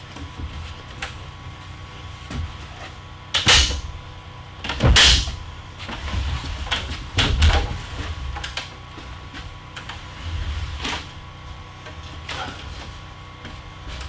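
Wooden 2x4 stud wall frame knocking and scraping as it is tilted and shoved into place, a run of separate thumps with the two loudest close together a few seconds in.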